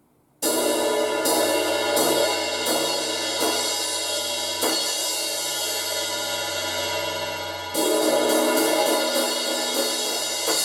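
16-inch Paiste Signature Fast Crash cymbal struck repeatedly, each hit ringing into a bright, sustained wash. After about half a second of near silence comes the first hit, then a handful of spaced strikes, and near the end a louder run of quicker hits.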